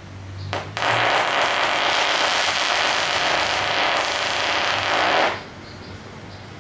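Fart sound performed as 'gunfire': a sharp click about half a second in, then a long, rapid rattle that lasts about four and a half seconds and cuts off abruptly.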